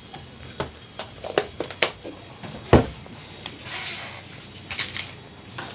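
Kitchen utensils and dishes being handled: a string of separate knocks and clinks, the loudest a sharp knock just under three seconds in, with a short hiss about a second later.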